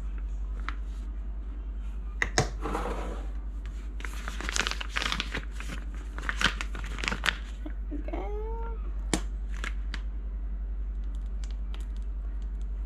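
A spoon scraping thick icing out of a glass jar into a piping bag, with the bag rustling and crinkling as it is filled and twisted, and scattered clicks and taps. A brief squeak that rises and then falls comes about eight seconds in, over a steady low hum.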